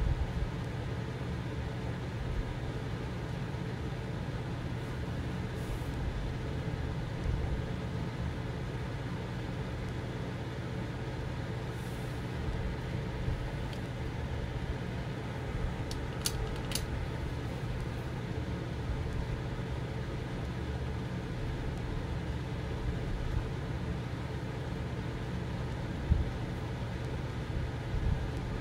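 Steady low machine hum with a hiss over it, unchanging throughout; two faint clicks about halfway through and a soft thump near the end.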